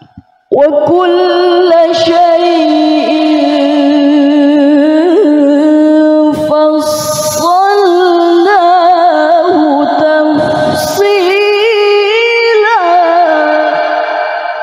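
Woman's voice in melodic Quran recitation (tilawah) through a microphone: one long, drawn-out phrase starting about half a second in, ornamented with rapid wavering trills and turns, and fading near the end.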